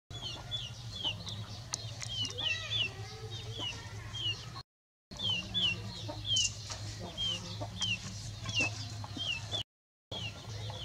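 Chickens: young chickens peeping repeatedly in short, falling high-pitched notes, about two a second, with a few lower hen-like calls among them. A steady low hum runs underneath, and the sound cuts out briefly twice.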